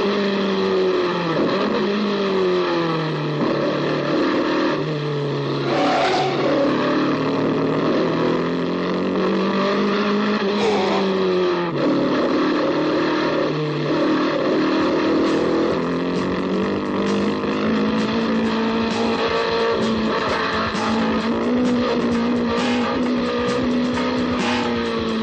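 Racing car engine running hard, its pitch falling and climbing again and again as it slows and accelerates, with a sharp drop and climb about twelve seconds in. Short clicks are scattered through the second half.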